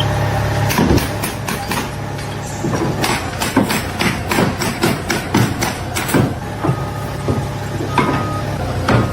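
Repeated sharp knocks and clanks like hammering on a construction site, coming fastest in the middle, over the low steady hum of an engine.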